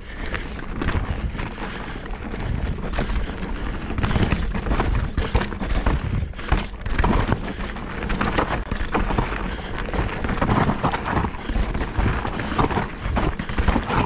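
Mountain bike ridden fast downhill on a dirt singletrack: tyres rolling and skidding over dirt, roots and rocks, with frequent sharp knocks and rattles from the bike, under a steady low rumble of wind on the mic.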